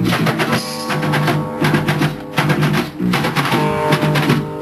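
Band music playing between vocal lines: strummed guitar over a steady drum beat.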